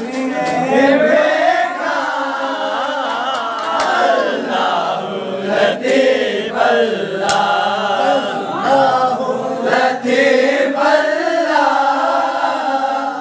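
A group of young men's voices chanting together in unison, the melody rising and falling, with no instruments.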